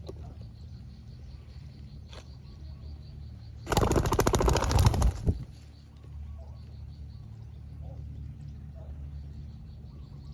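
Spotted doves cooing faintly, broken about a third of the way in by a loud burst of rapid wing flapping that lasts about a second and a half.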